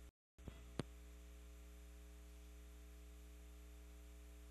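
Faint, steady electrical mains hum, with a brief complete dropout just after the start and a single sharp click a little under a second in.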